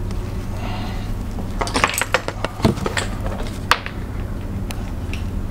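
Sauce-covered crabs and shellfish tipped from plastic tubs onto a plastic-covered table, the shells clattering and knocking in a cluster of sharp clicks about two to four seconds in. A steady low hum runs underneath.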